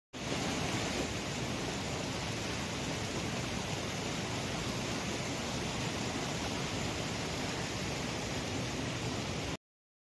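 Rushing water of a shallow, rocky mountain stream: a steady, even rush that cuts off abruptly near the end.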